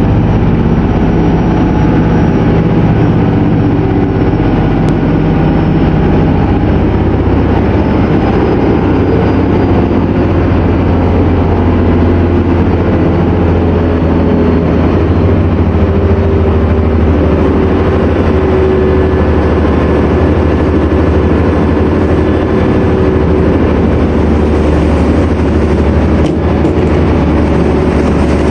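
A catamaran's engines running steadily while under way, a constant low drone mixed with the rush of its churning wake.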